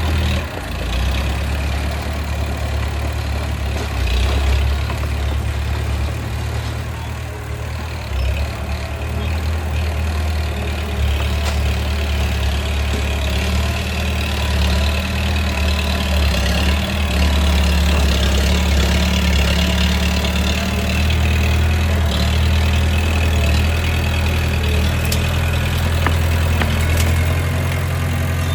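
Bulldozer's diesel engine running, a steady low drone that swells and eases as the load changes.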